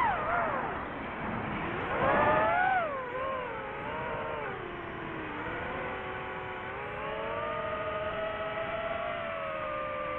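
DJI FPV quadcopter's motors and propellers whining with the throttle. The pitch drops sharply at the start, surges about two seconds in, then settles into a lower, fairly steady whine that shifts slightly up and down.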